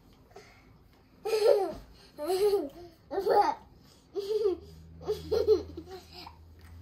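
Young child laughing in about five short, high-pitched bursts of giggling.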